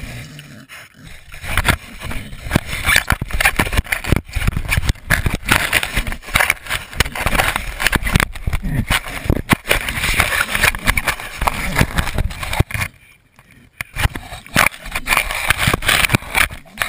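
A pig nosing and mouthing a GoPro camera: a steady jumble of scrapes, rubs and knocks right on the camera housing as it is shoved and tumbled about, with a brief lull about 13 seconds in.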